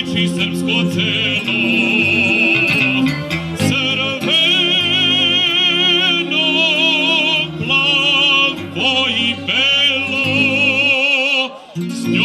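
A male singer in an operatic style holding long notes with a strong vibrato, backed by accordion and electronic keyboard playing sustained chords. The accompaniment drops out briefly near the end, then comes back in.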